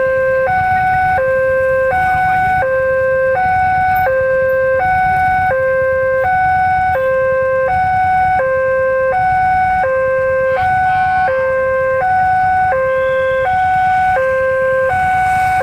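Railway level crossing warning alarm sounding with its barrier lowered for an approaching train: an electronic two-tone signal switching between a lower and a higher tone about every two-thirds of a second. A low rumble of waiting traffic runs underneath.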